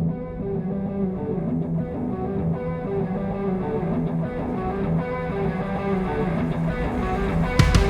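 Background music: a picked guitar line playing a run of notes, with a louder, fuller rock band coming in near the end.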